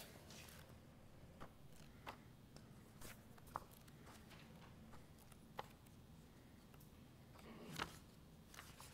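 Near silence: room tone with faint, scattered rustles and small clicks of papers being handled.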